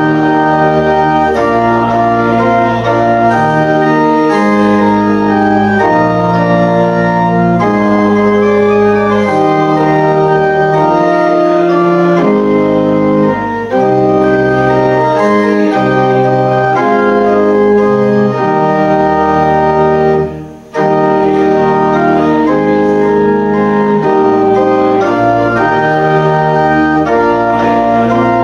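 Church organ playing slow sustained chords that change every second or two, with a brief break about twenty seconds in.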